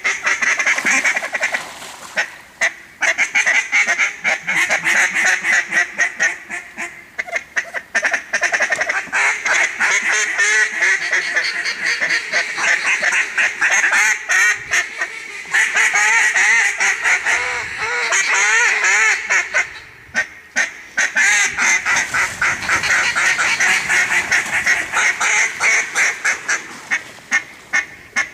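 Several mallard duck calls blown together: a loud, continuous run of rapid quacks and feed chatter, with a few brief pauses.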